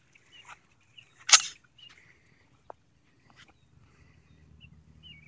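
A single short, sharp, hissy snap about a second and a half in, over faint bird chirps.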